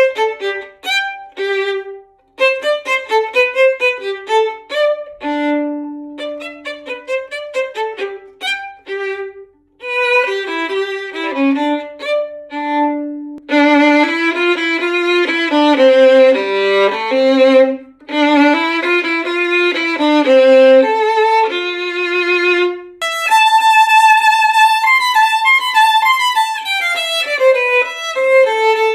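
Unaccompanied violin strung with DYNAMO SOLO strings, played in short phrases with a couple of brief pauses, then loud sustained double stops and chords reaching down to the lowest string, and fast runs near the end.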